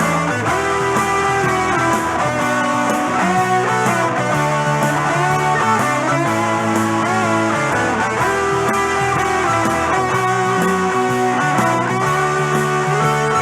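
Instrumental break in a rock-swing cover band arrangement: an electric guitar plays a lead line with bending notes over bass and a steady drum beat.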